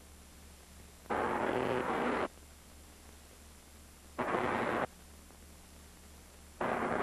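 Large 100,000-watt Tesla coil firing spark discharges in three bursts, each starting and stopping abruptly: one about a second long, a shorter one, and another starting near the end. A steady low electrical hum sits underneath.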